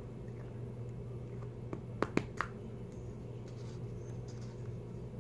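A few small sharp clicks, four close together about two seconds in, from a small object being handled and pressed in the fingers, over a steady low hum.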